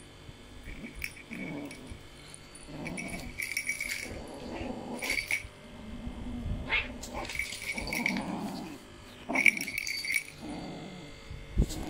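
A kitten growling in repeated short bursts while playing with a toy, with a small bell jingling now and then.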